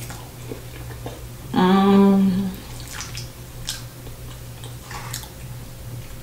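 A person eating macaroni and cheese hums one steady "mmm" of enjoyment, with the mouth full, about a second and a half in. A few soft clicks follow in the second half, over soft chewing.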